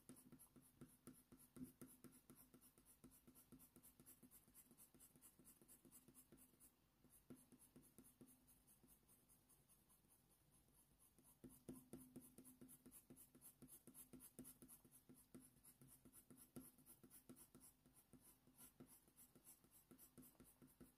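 Faint scratching of a Faber-Castell Polychromos coloured pencil on hot-press watercolour paper, in quick, short, repeated shading strokes, with a pause of a few seconds about halfway through.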